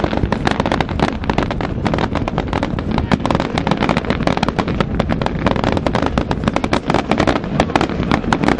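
Fireworks going off: a dense, unbroken run of bangs and crackles, many a second, from bursting shells with crackling star effects.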